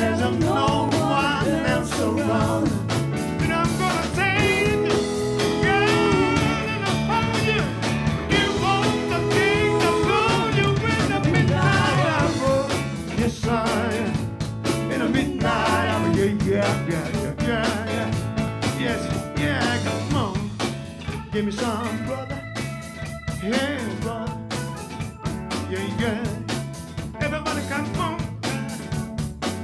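Live R&B band playing a song: drum kit, bass, electric guitar and keyboards, with a wavering lead melody over a repeating bass line.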